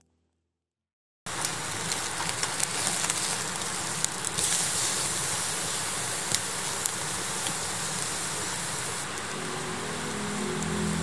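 Wood fire crackling in a fire pit: a steady hiss dotted with sharp pops. It starts after a moment of silence, and music comes in near the end.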